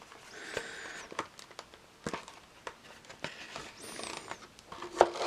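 Box packaging rustling and scraping, with a few light clicks and taps, as a tightly packed item is worked out of a model kit box. Two stretches of scratchy rustle, about a second long each, come near the start and just before the end.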